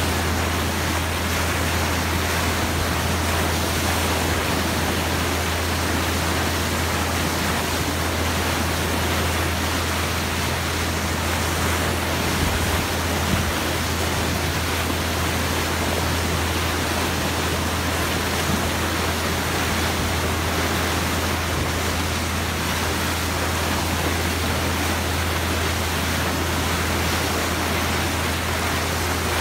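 Water of a boat's bow wave rushing and splashing past the hull as it moves, a steady noisy rush with a constant low hum underneath.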